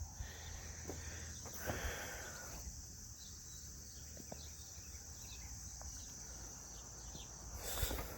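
Steady high-pitched insect chorus, crickets or similar, over a low rumble, with a couple of soft handling or rustling noises about two seconds in and near the end.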